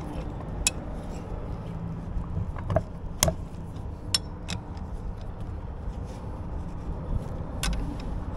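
Sharp metallic clicks and clinks of steel winch cable and a snatch block being handled, scattered and irregular, the loudest about three seconds in, over the steady low rumble of an idling engine.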